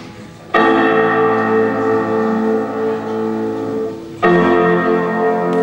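Two loud chords struck on a battered piano, about half a second in and again about four seconds later, each left to ring out.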